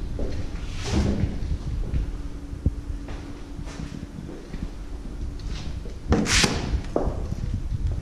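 Footsteps and camera handling noise as a person walks with a GoPro, with a faint steady hum for the first few seconds and a loud clatter about six seconds in.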